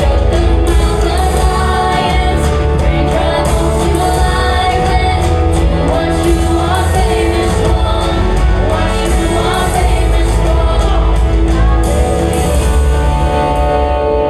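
Live church worship band playing a gospel praise song, with voices singing over steady beats and sustained instrumental chords.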